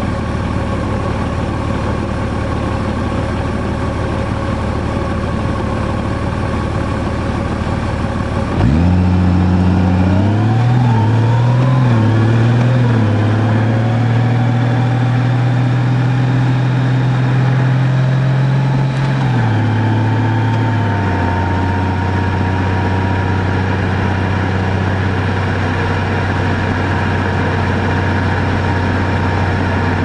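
Large touring motorcycle's engine idling steadily. About a third of the way in, the sound changes abruptly to the engine pulling away under way, its pitch rising and stepping through gear changes, then settling into steady cruising.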